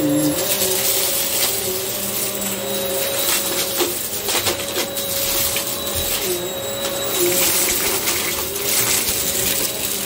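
Hoover upright vacuum cleaner running on carpet: a steady motor whine over rushing air, wavering a little in pitch, with a few light clicks.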